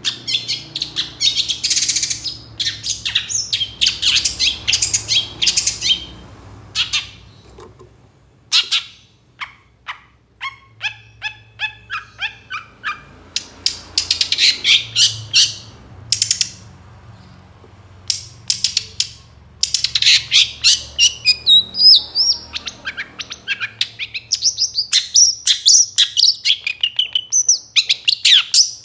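Long-tailed shrike (cendet) singing loudly: bursts of harsh, scratchy chatter alternating with runs of sharp clicking notes and fast twittering, broken by a short pause a little past the middle.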